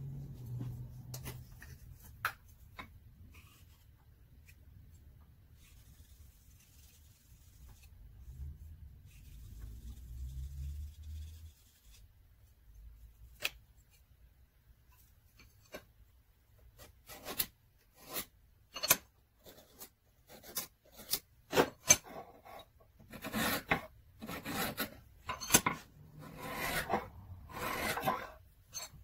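Steel scribing tool scratching along the inked edge of a steel knife blank, its steel base sliding on a granite surface plate. After a mostly quiet start with a few clicks, about halfway in come a quick run of short scraping strokes and clicks.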